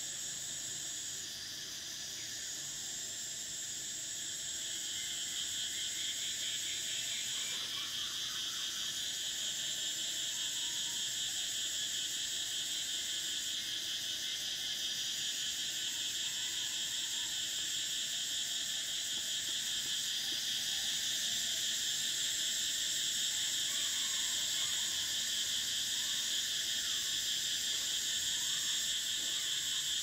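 Cicadas singing in a dense, continuous chorus: a high drone that dips briefly about every six seconds, joined a few seconds in by a second, lower drone that grows steadily louder.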